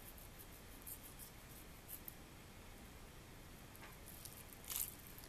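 Faint scraping and slicing of a kitchen knife cutting sinew and silver skin away from a raw beef tenderloin on a wooden cutting board, over quiet room tone, with a brief louder swish near the end.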